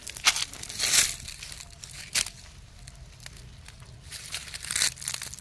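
Dry fallen leaves and potato plants rustling and crackling as they are handled, in about four short bursts with quieter rustling between.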